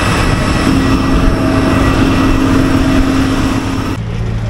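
Jet airliner turbine noise on the airport apron: a loud steady roar with a high whine running through it. It cuts off suddenly near the end and gives way to a lower, steady engine hum.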